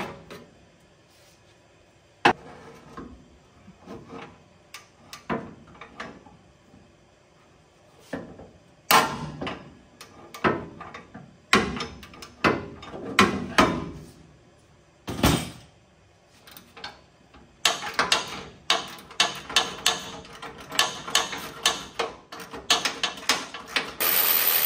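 Hand tools working on the bolts of a transmission support bracket: scattered metal clanks and knocks, then, about seventeen seconds in, a fast run of ratchet-wrench clicks as a half-inch bolt is backed out.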